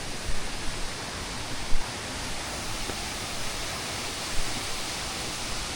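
Steady rush of falling water from a waterfall cascade, with one brief bump about two seconds in.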